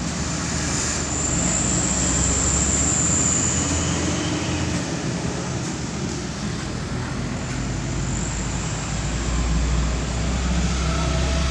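Busy road traffic: a steady mix of engine noise and road noise from passing trucks and motorcycles, with a deep engine rumble growing louder near the end.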